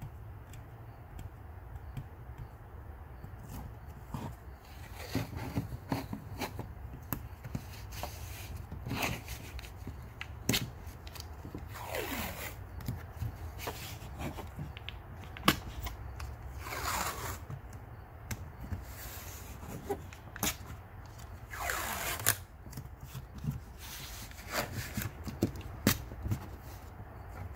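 Blue painter's tape being pulled off the roll in long strips, torn and pressed onto a window frame: three long pulls from the roll, each falling in pitch, among many small clicks and rustles of handling the tape.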